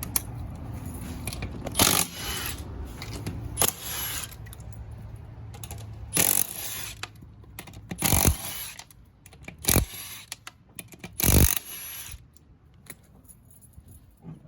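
Metal tools clanking and clinking during work on a pickup's rear suspension: about six short, loud bursts at irregular intervals, over a low hum that fades about six seconds in.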